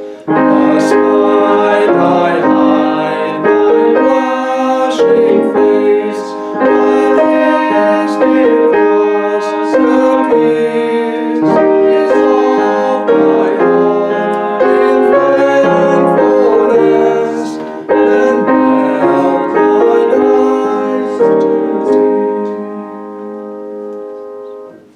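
Piano playing a hymn tune, which closes on a held final chord that dies away near the end.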